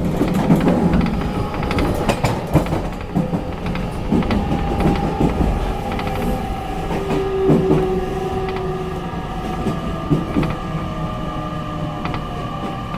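Interior running sound of a JR Kyushu 813 series electric train's motor car: a steady rumble with irregular clicks of the wheels over rail joints, and the traction motors' tones sloping slowly downward through the second half as the train slows for a station.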